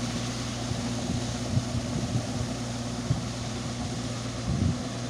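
Mahindra 575 XP Plus tractor's four-cylinder diesel engine running steadily under load while driving a rotavator through a flooded field, with a few short low thumps.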